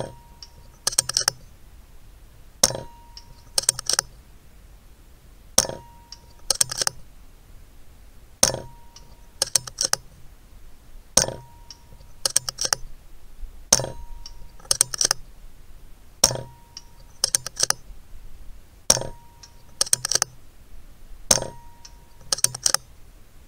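Daystate Delta Wolf PCP air rifle firing nine shots about every two and a half to three seconds, each shot with a short ring after it. About a second after each shot comes a quick cluster of two or three clicks.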